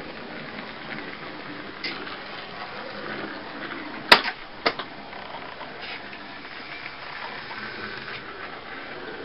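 Small electric motors and gearing of model trolleybuses running on a layout: a steady mechanical running noise, with a sharp click about four seconds in and a smaller click half a second later.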